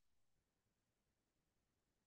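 Near silence: the audio is effectively muted between spoken prompts.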